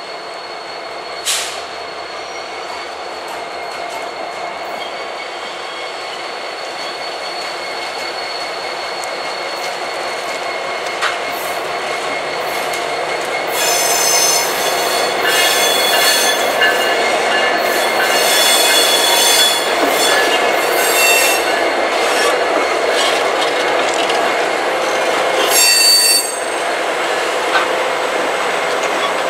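Norfolk Southern track geometry train, led by a Union Pacific SD70ACe diesel locomotive, rolling slowly past with its steel wheels running on the rails. High-pitched wheel squeal sets in about halfway through as the cars pass close, growing louder.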